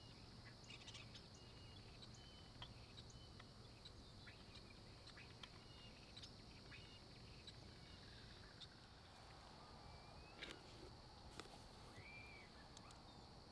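Faint lakeside dawn ambience: scattered short bird chirps and, near the end, a couple of short whistled bird calls that rise and fall, over a steady high insect-like hum. A few soft clicks stand out about ten and eleven seconds in.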